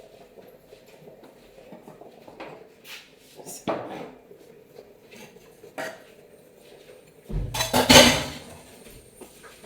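Kitchen dishes and utensils being handled: a few scattered clinks and knocks, then a louder clatter with a low thump about three-quarters of the way through.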